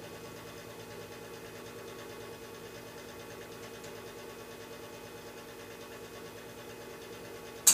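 Lennox Pulse21 furnace's exhaust fan motor running with a steady hum during the furnace's start-up. A single sharp click comes near the end.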